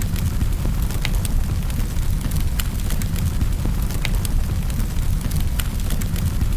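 Wood fire crackling in a fireplace: sharp, irregular pops and snaps over a steady low rumble.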